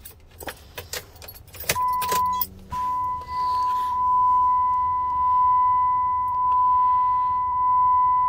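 Keys jangling and clicking at the ignition, then a steady, high-pitched electronic warning tone starts about two seconds in, breaks off briefly and sounds on without a pause; the diesel engine is not running.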